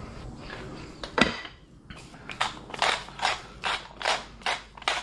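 Hand-twisted pepper mill grinding black peppercorns, one click about a second in, then regular ratcheting grinding strokes at about two and a half a second from about two seconds in.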